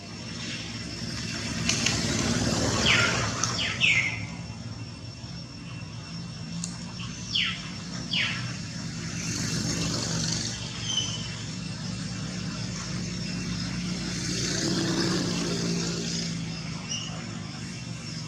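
A motor vehicle engine running and passing, with a steady low hum that swells twice. A few short, falling high chirps cut through it.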